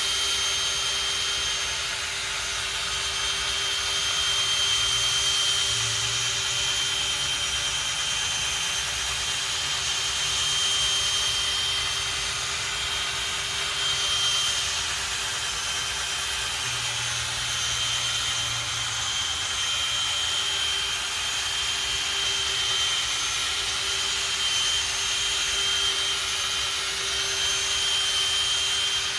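Electric drill running steadily, spinning a polishing pad that buffs compound into a plastic headlight lens, with a constant high whine over the rushing noise.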